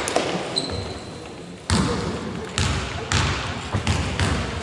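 A basketball bounced on a wooden sports-hall floor: about five single bounces, starting nearly two seconds in, each ringing briefly in the hall. This is a shooter dribbling at the free-throw line before his shot.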